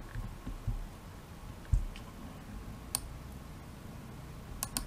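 A few sharp computer mouse clicks, one about three seconds in and two close together near the end, with a soft low thump about two seconds in.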